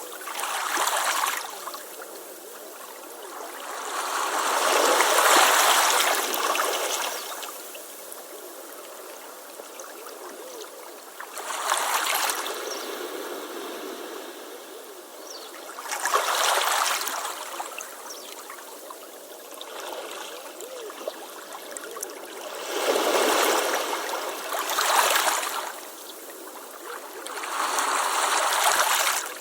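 Ocean waves washing onto a beach, each wave a swell of hiss that rises and falls over a second or few, about every four to seven seconds, over a steady background wash.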